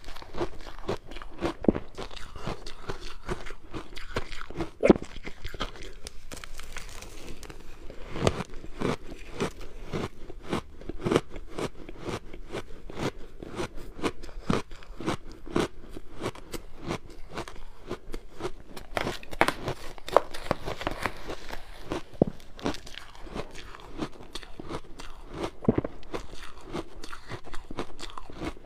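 Close-miked chewing of hard frozen ice, dense irregular crunches and cracks as it is bitten and ground between the teeth, with a few louder cracking bites.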